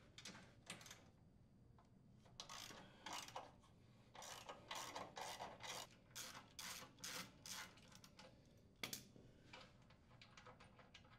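Ratchet wrench with a half-inch socket clicking in short repeated runs as it unthreads mounting bolts from a steel engine base. A single sharper metal clink comes near the end, followed by faint small clicks.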